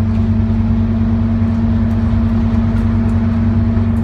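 Scania OmniCity bus engine running at a steady speed with road noise, heard from inside the passenger saloon as the bus cruises; a low, even drone with a few faint ticks and rattles.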